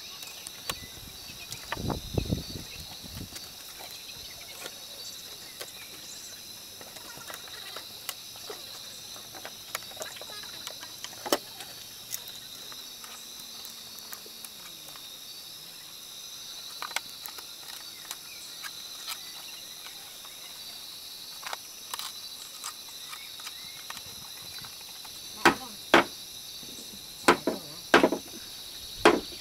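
Steady insect chorus, with scattered light knocks and taps and a run of several sharp strikes near the end.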